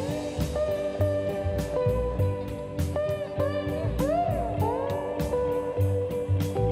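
Background music: bluesy electric guitar with bending, sliding notes over a steady drum beat.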